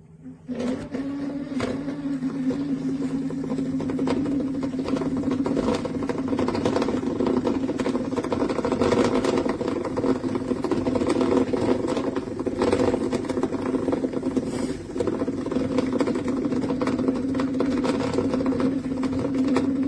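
Hamilton Beach FlexBrew Trio coffee maker switching on about half a second in and running: a steady hum with crackling and scattered clicks.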